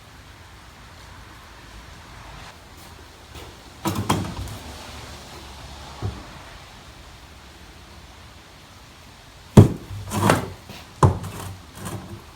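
A few knocks and clunks of objects being handled and set down on a work surface: one about four seconds in, a lighter one shortly after, and a quick cluster of sharper knocks near the end, over a faint steady hiss of rain.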